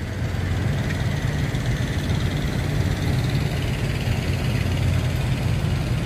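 Semi trucks' diesel engines idling, a steady low drone.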